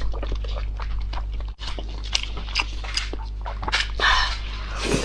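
Close-miked eating sounds: a run of short wet clicks and smacks from chewing and the lips, over a steady low hum.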